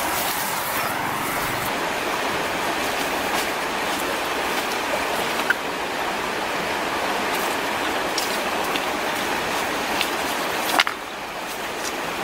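Steady rushing of a nearby stream, with a few sharp snaps and clicks of twigs and brush being trodden and handled; a louder snap comes near the end, after which the rushing is slightly quieter.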